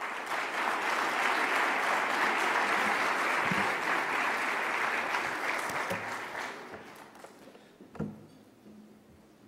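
Audience applauding, starting at once and dying away over the last couple of seconds, with a single knock near the end.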